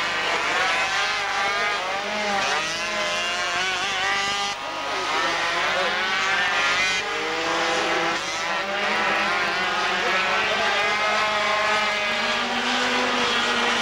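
Several 50cc two-stroke racing mopeds running hard around a tight circuit, their high-pitched engines overlapping and rising and falling in pitch as they accelerate out of corners and ease off into them.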